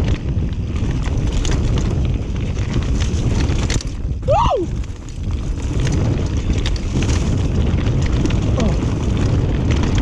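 Mountain bike riding fast down a dirt forest trail: heavy wind buffeting on the camera microphone over the rumble of the tyres, with scattered clicks and rattles from the bike. A brief squeal slides down in pitch about four seconds in.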